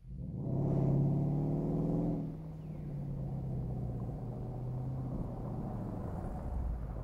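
Mercedes GL450's 4.7-litre V8, its exhaust modified with a 20 mm hole drilled before each rear muffler, accelerating with a rising exhaust note for about two seconds, then easing off to a steady low rumble as the SUV approaches.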